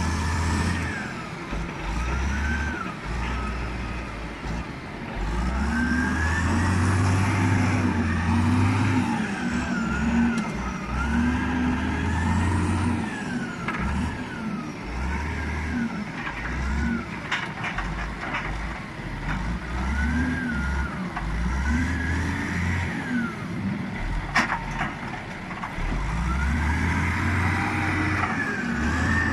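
Heavy diesel engine of log-handling machinery revving up and falling back over and over, as it does under working load. A few sharp knocks cut through it, the loudest about two-thirds of the way in.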